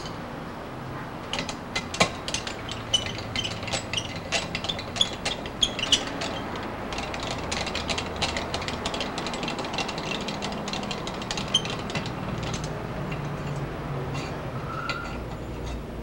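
Hand tap being turned back through the threads of a freshly installed spark-plug insert in a Harley-Davidson Shovelhead cylinder head, chasing the threads clean: quick, irregular metallic clicks and ticks from the tap and its wrench that thin out after about twelve seconds, over a low steady hum.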